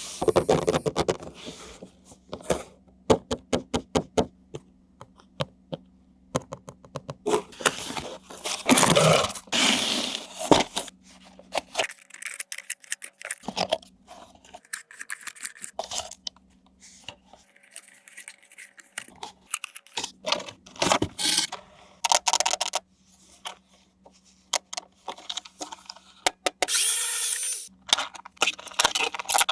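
Toy packaging and plastic toy parts being handled: a run of sharp clicks, scrapes and crinkling rustles, some loud, over a faint steady hum.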